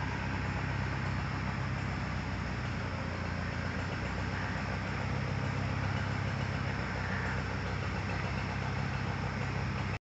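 Engine of an aerial bucket truck running steadily, a low even hum.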